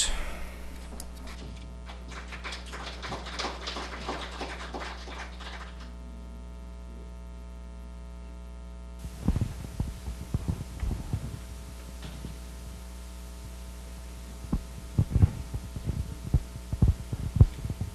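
Steady electrical hum from a church sound system, with scattered knocks and rustles of people moving and microphones being handled; a louder hiss comes up about nine seconds in.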